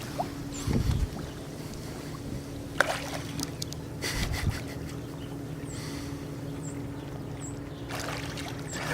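A boat motor running steadily at idle, a low even hum, with a few faint high chirps in the second half.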